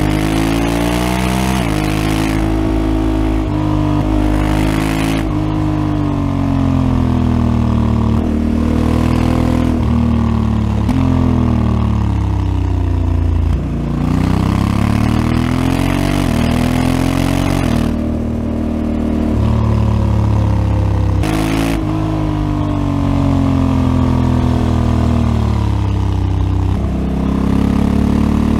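Honda Africa Twin CRF1100L's parallel-twin engine running through its stock exhaust under way. The pitch climbs and then drops sharply again and again as it accelerates and shifts up, with a few stretches of easing off and pulling away again.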